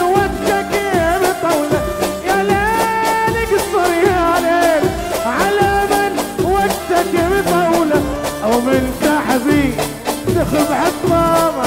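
Live Iraqi Arabic song accompaniment: a band of keyboard, oud and violin playing a gliding melody over a steady percussion beat.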